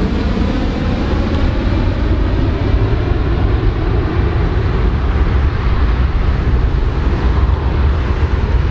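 Four-engined jet airliner climbing away overhead: a loud, steady jet roar with a heavy low rumble.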